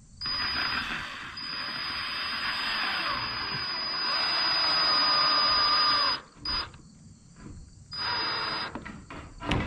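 Snap-on cordless drill running a bit into a wooden frame: one long run of about six seconds with the motor's pitch wavering, then it stops and a few shorter bursts follow.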